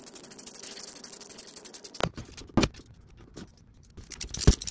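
Hand ratchet clicking rapidly for about two seconds while it turns a bolt on an automotive oil pump, followed by three sharp metal knocks.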